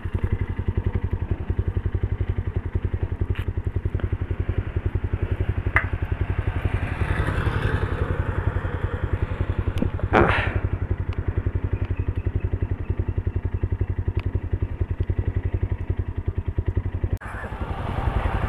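Single-cylinder engine of a Motorstar Cafe 150 motorcycle idling with an even, rapid pulse. A short, louder burst of noise sweeps past about ten seconds in.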